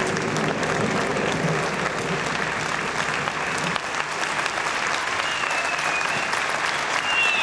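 Theatre audience applauding steadily, a dense continuous clapping, as the cast comes on stage for the curtain call. A thin, wavering high tone rises above the clapping in the last couple of seconds.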